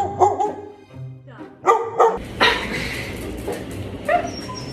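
A dog whining and giving a couple of short barks, over background music.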